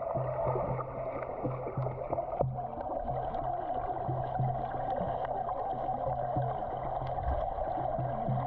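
Steady, muffled rush of water with a low hum that pulses on and off; the sound shifts abruptly about two and a half seconds in.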